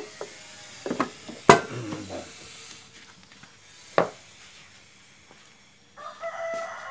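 A few sharp knocks, the loudest about one and a half seconds in and another about four seconds in, as the scooter's CVT cover is being fitted. Near the end a rooster crows.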